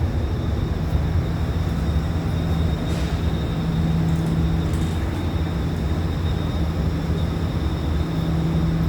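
Cabin noise inside an Alstom Movia R151 MRT train: a steady low rumble with a constant hum, and a fainter higher hum joining about halfway through.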